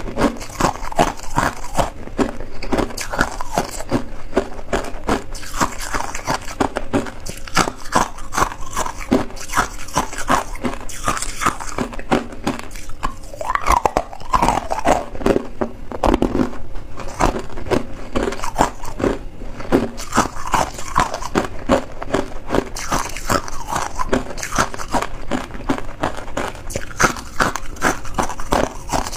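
Ice being bitten and chewed: a dense, continuous run of sharp crunches and crackles as hard ice cubes and crushed ice are broken up between the teeth.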